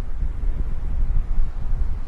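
Strong sea wind buffeting the microphone: a loud, gusty low rumble.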